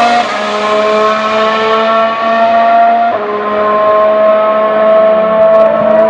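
Formula 1 car's 1.6-litre V6 turbo hybrid engine under acceleration, its pitch climbing steadily through the gears, with a quick upshift drop just after the start and another about three seconds in.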